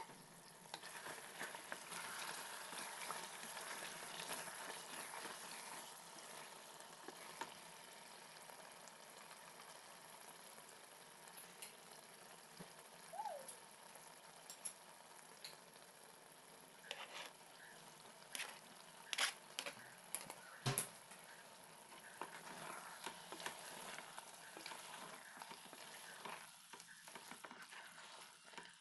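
Chicken in tomato gravy sizzling steadily in a non-stick pot. A flat spatula scrapes and knocks against the pan several times past the middle, then stirs the curry near the end.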